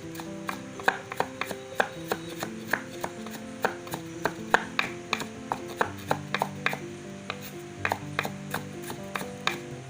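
Kitchen knife chopping on a cutting board, uneven sharp taps a few times a second, over soft background music with held notes.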